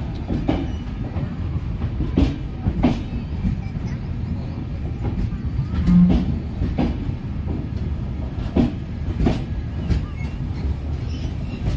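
Passenger coaches of an Indian Railways express train rolling past a platform: a steady low rumble, with the wheels clacking over rail joints in pairs every few seconds (clickety-clack).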